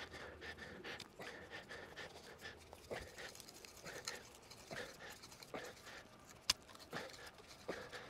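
Hand-turned flat drill bit scraping into a green wooden stick, in faint, short, irregular rasps as it is twisted back and forth, with one sharp click about six and a half seconds in.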